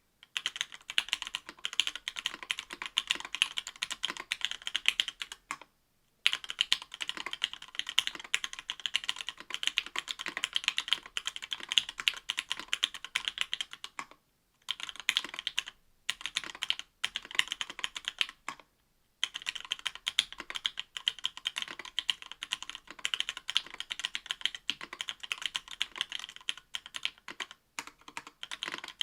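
Continuous fast typing on a mechanical keyboard with stock Matrix Lab FFFF 62g linear switches, an aluminum plate and GMK keycaps: a dense stream of crisp keystroke clacks, broken by short pauses a few times.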